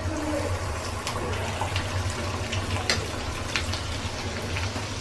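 Rice-flour batter frying in hot oil in an iron karahi: a steady sizzle with scattered crackles and pops as the freshly poured batter puffs up, over a low steady hum.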